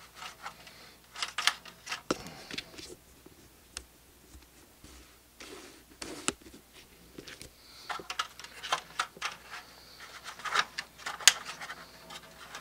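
Irregular plastic clicks, taps and short scraping rustles from hands working on a laser printer's drum-unit drawer, pulling off the orange protective tape and packing pieces. One sharp click near the end is the loudest.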